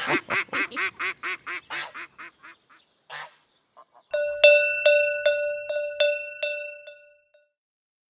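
A duck quacking in a rapid string of calls, about five a second, that fades out over three seconds. Then a cowbell rung about eight times, each strike ringing on, fading out: the read-along's signal to turn the page.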